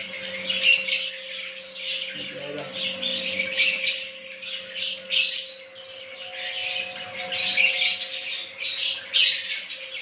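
Lovebirds squawking and chirping in a rapid, repeated chatter of high-pitched calls, over a faint steady hum.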